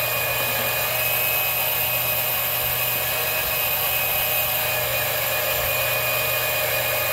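Electric oil extractor pump, running off the car battery, running steadily with a hum and a high whine as it sucks engine oil up through the dipstick tube.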